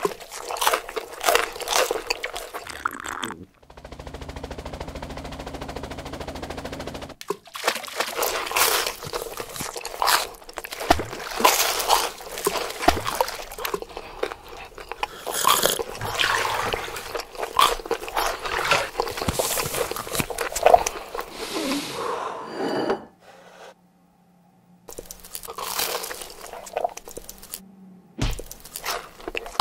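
Fried chicken and sandwiches being crunched and bitten, with paper wrappers crinkling, in quick choppy cuts. A steady low buzz runs for about three seconds near the start, and a short silence falls near the end.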